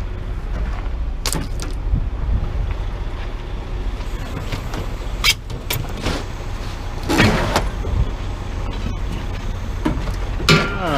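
A motor vehicle engine runs with a steady low rumble, broken by a few scattered sharp metal clanks and scrapes as scrap is handled.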